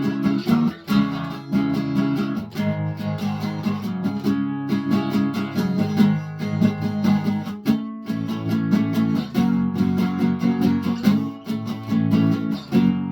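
Guitar strumming chords in a steady rhythm with no voice: an instrumental passage between sung verses.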